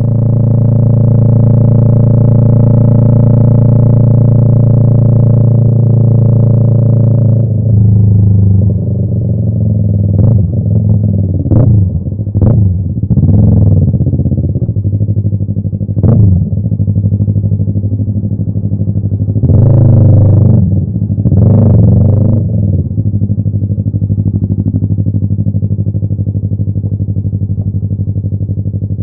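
Yamaha YZF-R3's parallel-twin engine through an aftermarket M4 exhaust, heard from on board. It holds a steady note for about seven seconds, then gives a string of short rev blips and two longer bursts of revs around twenty seconds in, before settling to a steady idle near the end.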